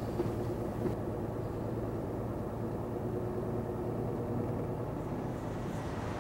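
Steady low rumble of a stopped intercity bus's engine idling, heard from inside the cabin, with a couple of small clicks in the first second.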